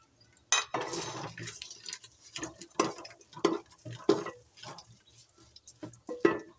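A spoon stirring whole spices frying in ginger-garlic paste in an aluminium pot, scraping and knocking against the pot bottom and sides in about a dozen irregular short strokes, the loudest near the end.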